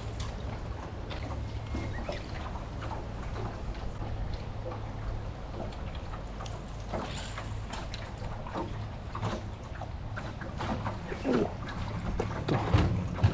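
Water lapping and splashing around a small fishing boat, with a steady low rumble underneath. Scattered small splashes and knocks grow busier and louder in the last few seconds.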